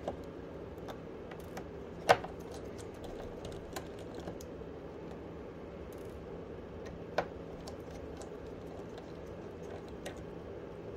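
Small, sparse clicks and taps of a precision screwdriver working the screws inside an opened smartphone. The sharpest click comes about two seconds in and another about seven seconds in, with fainter ticks between.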